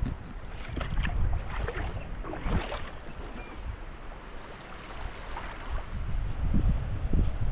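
Wind buffeting the microphone in a low steady rumble, with a few crunching footsteps on leaf-strewn sand in the first few seconds.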